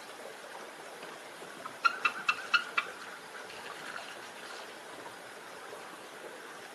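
Bald eagle calling: a quick run of about five short, high piping notes about two seconds in, over a steady background hiss.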